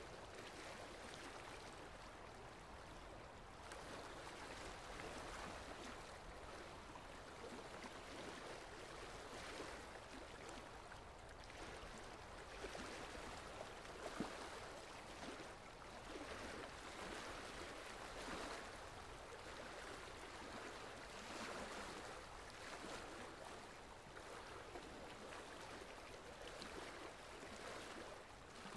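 Faint wash of small waves lapping in shallow sea water, a steady noise that swells and eases gently, with two short louder moments about halfway through.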